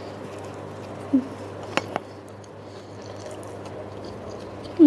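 Soft roti john sandwich of bread roll, egg, corned beef and cheese being chewed with the mouth closed: quiet wet chewing with small lip and tongue clicks.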